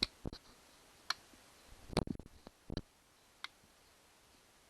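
A backup camera being handled after it was fixed in place with double-sided tape: a few scattered clicks and light knocks, most of them in the first three seconds, then nearly quiet.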